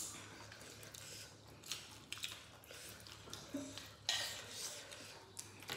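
Quiet eating sounds: fingers picking through rice and meat on a banana leaf and mouths chewing, with scattered small clicks and a short louder rustle about four seconds in.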